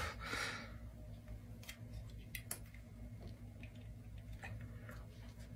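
Faint, irregular clicks and ticks of a tin can being worked open by hand.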